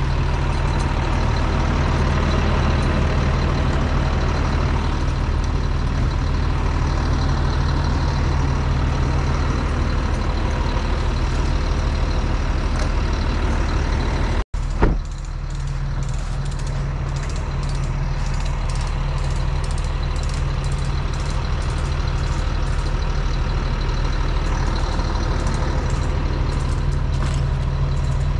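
Bucket truck's engine running steadily with a low drone, breaking off for an instant about halfway through and then going on as before.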